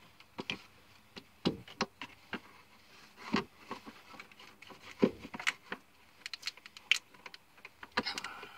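Hand tools and metal engine parts clinking and knocking: scattered short clicks at an irregular pace, bunching into a quick run of clicks about two-thirds of the way through.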